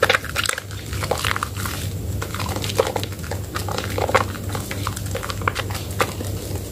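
Wet squelching and squishing as hands squeeze and knead a soaked bar of Medicare White soap in thick lather, in quick irregular squishes over a steady low hum.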